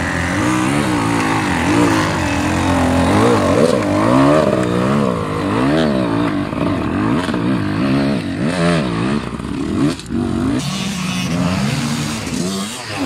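Gas Gas EC 300 two-stroke enduro motorcycle engine revving up and down again and again as the throttle is worked on and off, pulling the bike up a steep dirt slope with the rear wheel spinning in the loose soil.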